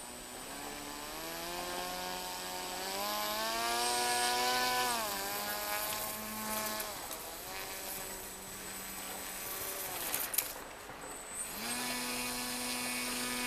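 Small electric motor of a battery-powered radio-controlled model sled whining under throttle. Its pitch climbs for a few seconds, drops sharply about five seconds in and runs lower. It falls away, then comes back near the end as a steady hum.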